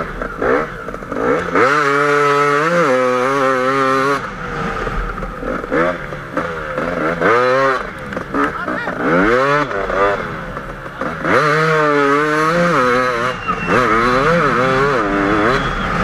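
KTM 250 EXC two-stroke enduro motorcycle engine ridden hard, revving up and dropping back about five times as the throttle is opened and closed.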